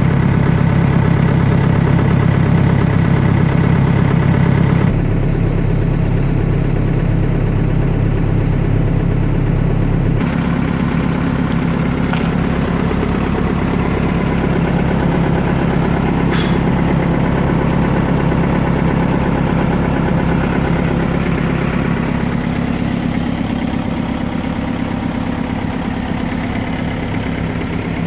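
Cat 430D loader backhoe's diesel engine idling steadily, its tone shifting suddenly about five and ten seconds in.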